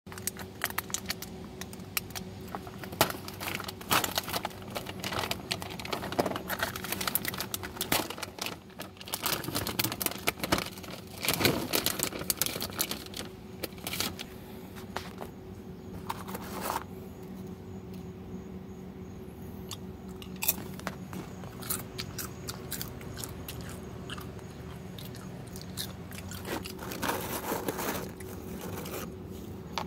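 Crinkling plastic packaging and a foil lid being peeled off a salsa-and-tortilla-chip snack tray, with tortilla chips handled and crunched. The crackling is busy through the first half, sparse in the middle and picks up again near the end, over a steady low hum.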